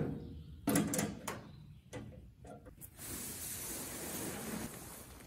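Plastic tarp crackling and rustling in several quick pulls as it is stripped off a car body, then a steady hiss as it is dragged across grass from about three seconds in.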